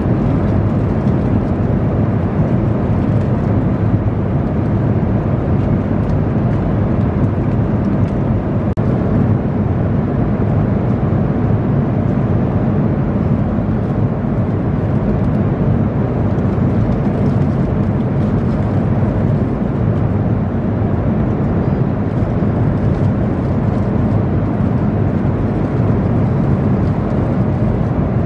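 Steady low rumble of airliner cabin noise from the jet engines and air-conditioning, heard inside the passenger cabin.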